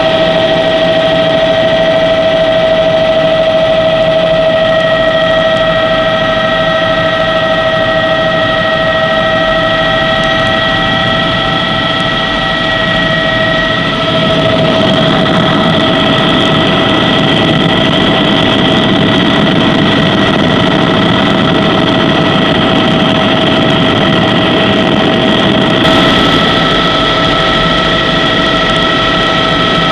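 Helicopter engine and rotor noise heard inside the cabin in flight: a loud, steady whine over a rough rumble, shifting slightly in pitch about halfway through.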